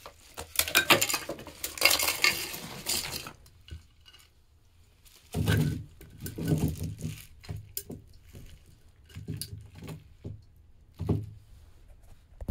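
A textured silicone roasting mat peeled away from an ice lantern, with dense crackling and rustling for about three seconds. Then several knocks and bumps with rustling as the ice lantern is handled on bubble wrap.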